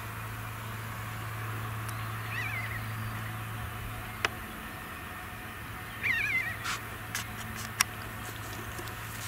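Distant tractor and truck engines droning steadily. An animal's wavering call sounds twice, faintly about two and a half seconds in and louder about six seconds in, with a few sharp clicks between and after.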